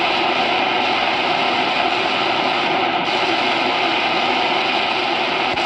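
Steady, loud shortwave static hiss from a Tecsun H-501X receiver's speaker in AM mode as it is tuned up the 31 m band between stations. The hiss shifts slightly about three seconds in.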